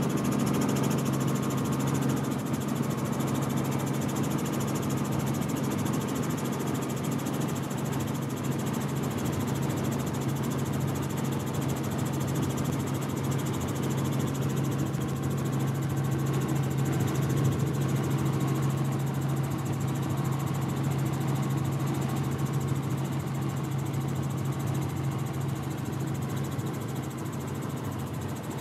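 A piston aircraft engine running steadily at idle, with an even low hum and no revving.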